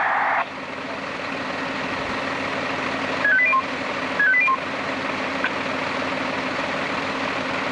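Turntable ladder fire engine's engine idling steadily. Near the middle, two short electronic jingles of quick stepped beeps sound about a second apart, louder than the engine.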